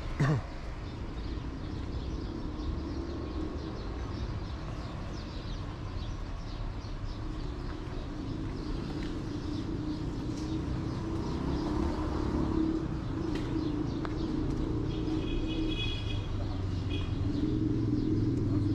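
City street traffic: a steady low rumble of passing vehicles, with a brief loud falling squeal at the very start and an engine growing louder as a vehicle passes near the end. A few bird chirps sound late on.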